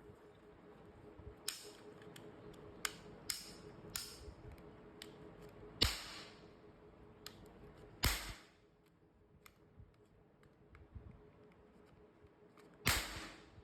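Toy gun clicking and firing: a string of sharp clicks, with three much louder shots about six, eight and thirteen seconds in.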